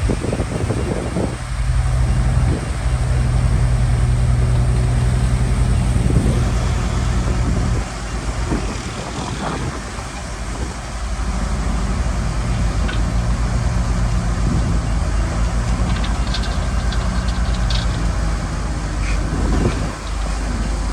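Shantui bulldozer's diesel engine running steadily under load, easing off about eight seconds in and picking up again a few seconds later, with a few short clanks near the end.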